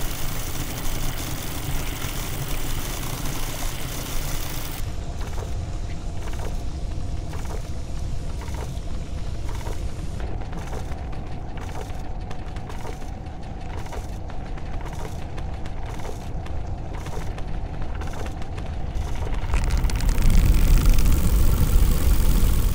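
Mechanical sound effects of a molecular animation: a dense whirring and churning. From about five seconds in, a regular clicking comes about twice a second, and near the end a deep rumble swells up loudest.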